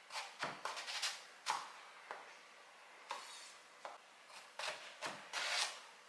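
Kitchen prep handling sounds: irregular short knocks and clatters of utensils, cookware or ingredients on a counter, with a couple of longer rustling swishes.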